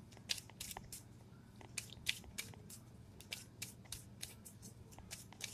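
Tarot cards being handled by hand: faint, irregular clicks and snaps of card stock, two or three a second, as a card is drawn from the deck.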